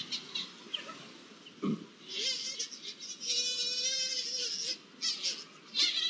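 Iberian lynx mating calls: high, wavering yowls, one long call from about two seconds in to nearly five, then shorter calls near the end. A brief low thud comes a little before the first call.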